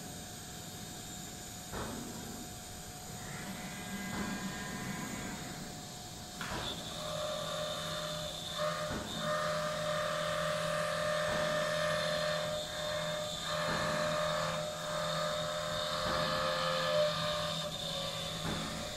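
Excitech five-axis CNC machining center running, its spindle head moving over the work. A steady mechanical whine with several held tones sets in about six seconds in and keeps on, with a few brief dips.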